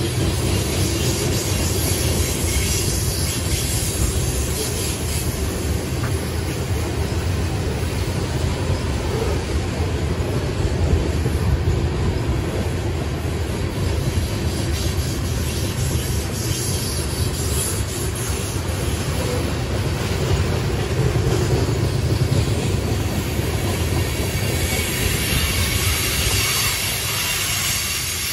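Freight train of covered hopper cars rolling steadily past, the continuous noise of steel wheels running on the rails.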